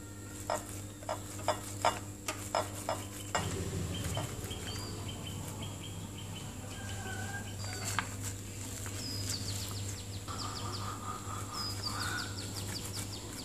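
Small birds chirping and twittering in the background over a steady low hum, with short chirps and quick trilled runs from about four seconds in. Before that comes a run of about nine light clicks.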